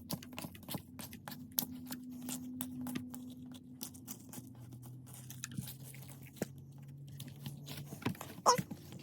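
Slime being pressed, pulled and torn by hand, making many small irregular clicks and crackling pops, with one louder snap near the end.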